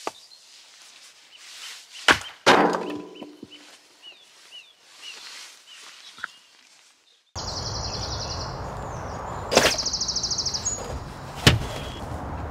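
An axe strikes a log on a chopping block twice in quick succession, and the second blow rings briefly as the wood splits. Birds chirp afterwards. After a cut a steady outdoor hiss sets in, with a bird's rapid high trill twice and two more sharp knocks.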